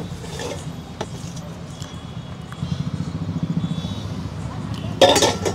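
A motor vehicle's engine running close by, a low pulsing rumble that grows stronger about halfway through, with a short noisy burst near the end.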